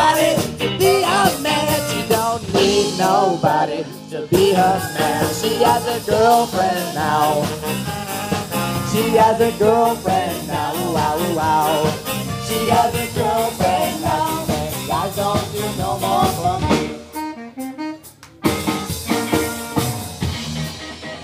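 Live ska band playing, with trumpet and saxophones carrying the melody over drums. The band drops out briefly about seventeen seconds in, then comes back in.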